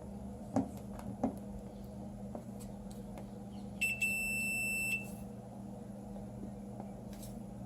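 Digital multimeter's continuity beeper giving one steady high beep about a second long, about halfway through, signalling that the left-channel conductor of the audio cable is connected through. Two short clicks come earlier.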